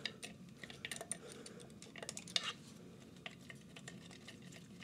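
Light metallic clicks and clinks of tools and plumbing fittings being handled at a water-pipe fitting, coming irregularly with a small cluster about two seconds in.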